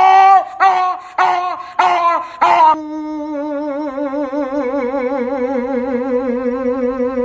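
A dog vocalizing: four or five short yowls, each rising and falling in pitch, in quick succession. Then one long wavering howl that slowly sinks in pitch.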